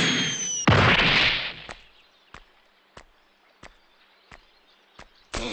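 Cartoon sound effects of a body hurtling through the air and crashing into the ground: a loud whoosh with a falling whistle, then a crash that fades out after about a second. Faint light ticks follow, evenly spaced about two-thirds of a second apart.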